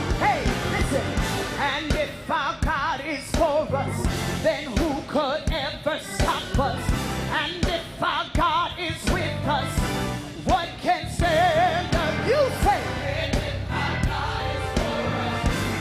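Live gospel band music with drums, and a melody line sung in wavering runs without clear words.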